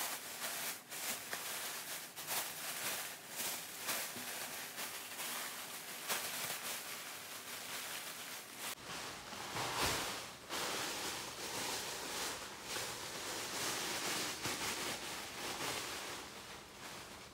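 Thin plastic carrier bags rustling and crinkling as hands lift and handle them.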